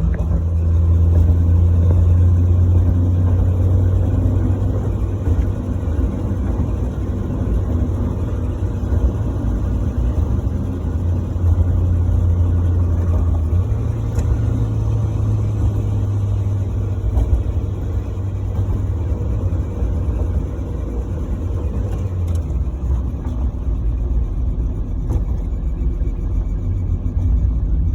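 NA Mazda Miata's inline-four engine running with a steady low drone that shifts in pitch about halfway through and again later on.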